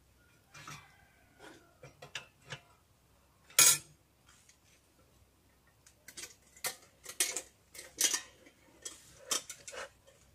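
Metal beekeeping gear clinking and knocking as it is handled at the hive: a few light clicks, one sharp loud knock about three and a half seconds in, then a run of rapid clatter in the second half.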